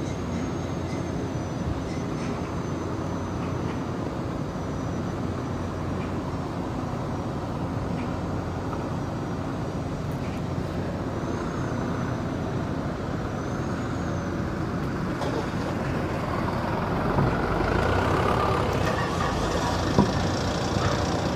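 Sightseeing tour boat under way: its engine drones steadily under the wash of water and wind. The sound swells a little in the last few seconds, and there is a single short knock near the end.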